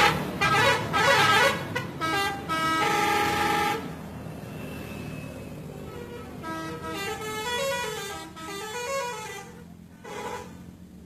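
Indonesian bus 'telolet' horn, a multi-tone musical horn, sounding a quick run of short notes in a tune for about four seconds, then much quieter with fainter wavering tones.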